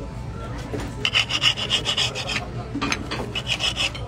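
Rapid rasping, scraping strokes, about seven a second, in a longer burst starting about a second in and a shorter one near the end.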